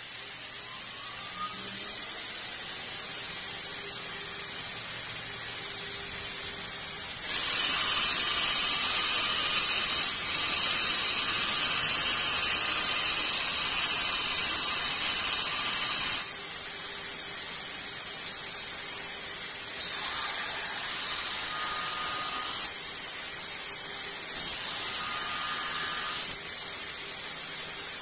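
Belt grinder with a 40-grit ceramic belt grinding a piece of 316 stainless steel: a steady, high-pitched hiss of abrasive on metal. It gets louder for about eight seconds under heavier pressure, then settles back to lighter grinding.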